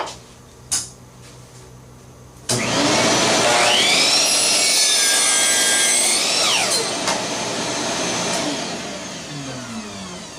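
Electric miter saw started about two and a half seconds in, its motor whine rising to speed as the blade cuts through a 2x6 board, then released at about seven seconds and spinning down with a falling whine. A couple of small clicks come before it starts.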